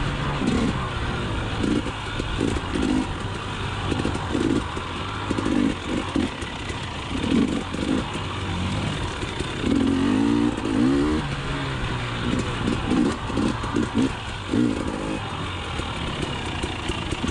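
KTM 300 XC TPI two-stroke single-cylinder dirt bike engine revving up and down while being ridden off-road, the pitch rising and falling repeatedly, with knocks and rattles over rough ground.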